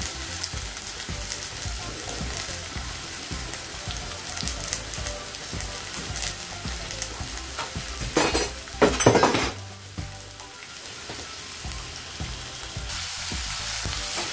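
Chopped onion, tomato, shallot and leek sizzling and frying in hot olive oil in a stainless steel pot, with a brief louder burst of noise about eight to nine seconds in. Near the end a spoon stirs the vegetables.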